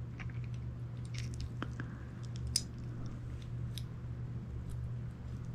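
Small clicks and scrapes of steel revolver parts being handled as a Ruger New Vaquero's grip frame and trigger are fitted back onto the main frame, with one sharper click about two and a half seconds in. A steady low hum runs underneath.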